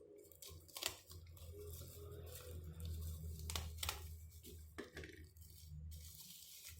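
Packaging being handled by hand: a few sharp clicks and taps over a low steady hum.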